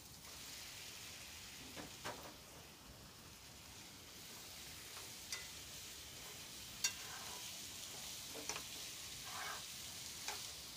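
Beef liver pieces frying faintly in thick spice paste in a frying pan, a low steady sizzle, while a wooden spatula stirs them in with a few light clicks against the pan.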